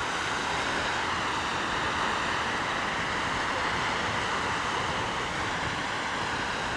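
Erupting geyser: a steady rushing hiss of its water jet and spray.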